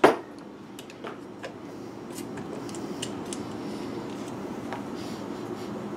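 Metal bottle opener working at the crimped cap of a glass sauce bottle: a sharp click right at the start, then light metallic clicks and scrapes over a low steady hum.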